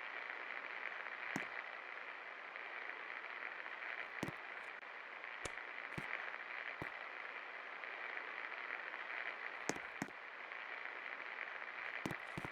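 24 inch Best Electric Works Classic ceiling fan running: a steady airy whir with scattered sharp clicks.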